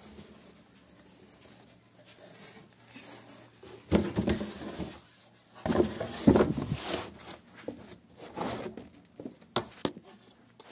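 Handling noise: rustling, knocks and bumps as things are moved about right next to the phone's microphone, with louder bumps about four seconds in and again around six seconds, and a few sharp clicks near the end.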